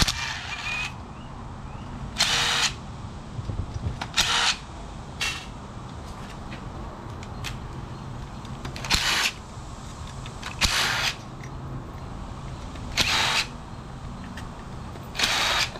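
Cordless impact driver with a 7 mm socket running in short bursts, each under a second, about eight times, working the Torx bolts off a small hermetic reciprocating compressor.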